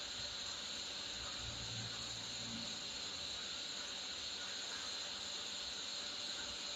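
Steady hiss with no speech: the noise floor of the broadcast line during dead air.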